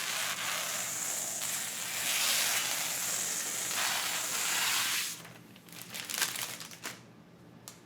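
Protective plastic film being peeled off a new PC part in one long, crackling pull lasting about five seconds. A few light clicks and taps follow.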